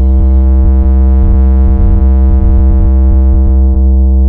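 Loud electronic synth bass from a DJ sound-check track, held on one very deep note with a buzzy stack of overtones, meant for testing the speakers' bass. The upper overtones fade away near the end while the deep note carries on.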